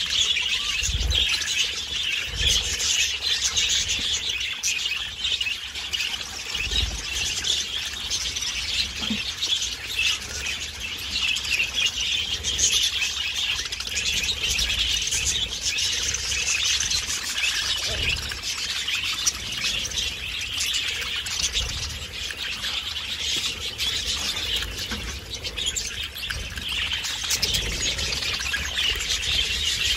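A flock of budgerigars chattering and chirping, many birds at once in a dense, unbroken warble.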